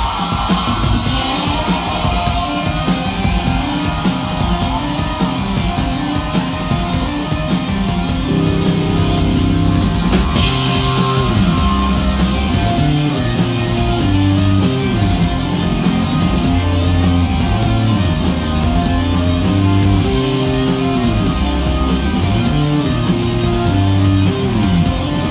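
Live rock band playing: drum kit with cymbals, electric guitar and keyboard. A low melodic line comes in about eight seconds in, and cymbal crashes ring out about a second in and again near ten seconds.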